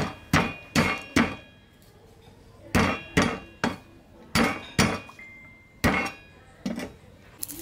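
A steel cleaver striking garlic cloves on a round wooden chopping block, smashing them. About a dozen sharp knocks come in uneven groups, some with a brief metallic ring from the blade.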